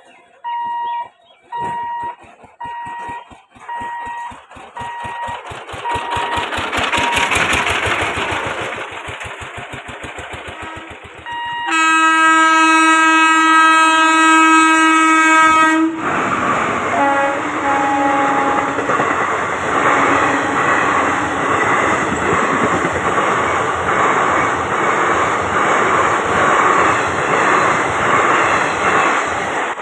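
Level-crossing warning alarm beeping about once a second, fading over the first few seconds, while an electric express train approaches with a rising rumble. The locomotive sounds one long horn blast of about four seconds. Then the coaches rush past with a loud, steady, rhythmic clatter of wheels on the rails.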